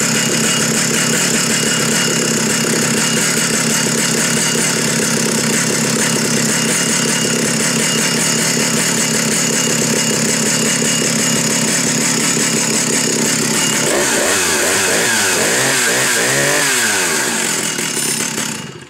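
Stihl 075 AV Electronic 111 cc two-stroke chainsaw idling loudly and steadily. About two-thirds of the way in, its engine speed swings up and down several times, then the engine cuts out near the end.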